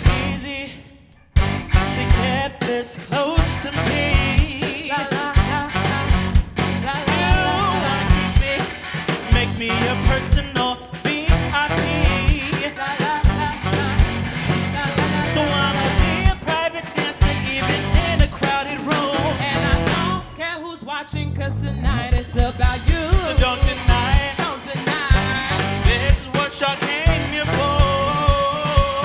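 Live band playing pop-gospel-jazz fusion, with drums, bass, electric guitar and saxophone under singing. The band cuts out for about a second at the start, then comes back in full, and drops away briefly about two-thirds of the way through before the drums kick it back in.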